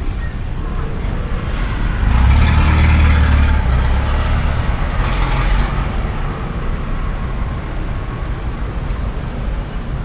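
Street traffic: a motor vehicle passes close by about two seconds in, its engine loudest for a couple of seconds, over a steady low rumble of traffic.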